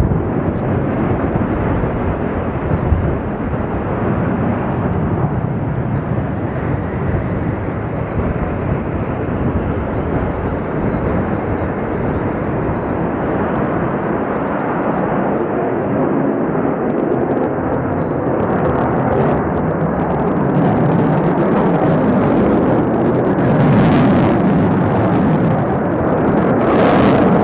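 Sukhoi Su-35 fighter's twin turbofan jet engines, a loud steady roar that grows a little louder in the second half.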